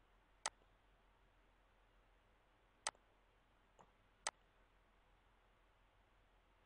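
Computer mouse clicks: three sharp single clicks a second or two apart, with a fainter one just before the last, over faint hiss.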